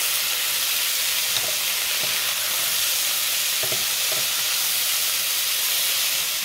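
Turkey breast strips sizzling steadily as they fry in clarified butter in a pan, with a wooden spatula stirring and turning them a few times.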